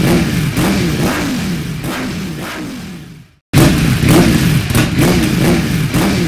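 Motorcycle engine being revved over and over, each blip rising and falling in pitch. It fades out about three seconds in, stops dead, then starts again at full level as the same clip repeats.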